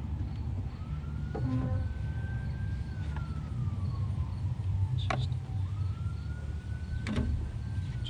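Faint emergency-vehicle siren wailing, its pitch twice rising, holding and falling slowly. It sits over a steady low rumble, with two short clicks near the middle.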